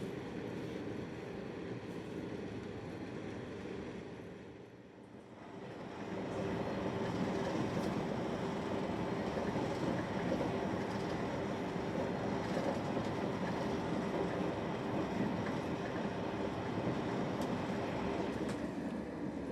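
Train running on the rails, a steady rumble with a hum. It dips briefly about five seconds in, then comes back louder.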